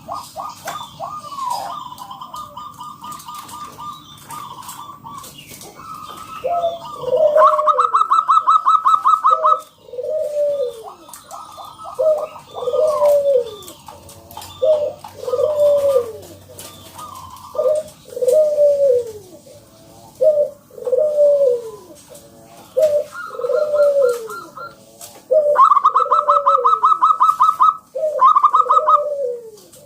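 Zebra dove (perkutut) singing: bursts of rapid, staccato rattling notes alternating with short falling coos, repeated over and over.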